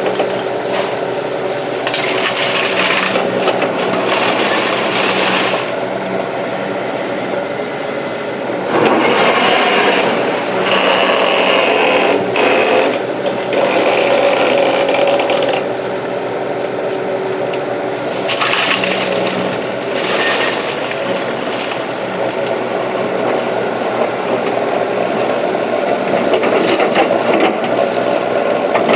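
Komatsu PC200 excavator's diesel engine running under load as it works, with the steady engine note rising into louder, hissier surges every few seconds as the hydraulics work the arm and bucket.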